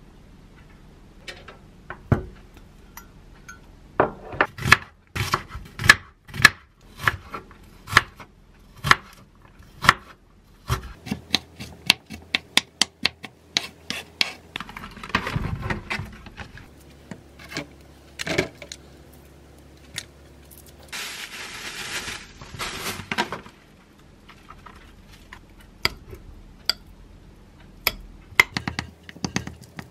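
A kitchen knife chopping onion on a wooden cutting board: a run of sharp knocks, spaced out at first and coming quickly in the middle. A short hiss comes about two-thirds of the way in. Near the end a metal spoon scrapes and clinks against a glass bowl as avocado is scooped into it and mashed.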